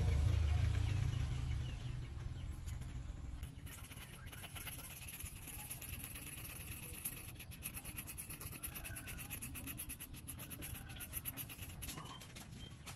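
Small bristle brush spreading epoxy glue around the inside of a loudspeaker dust cap: a long run of quick scratchy brush strokes. A low rumble comes before the brushing starts.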